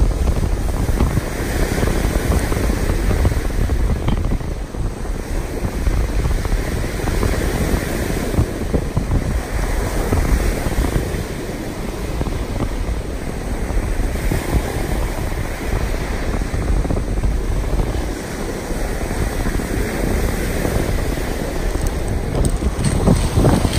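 Wind buffeting the microphone with a heavy low rumble, over waves washing in and out on a pebble shore, swelling every few seconds.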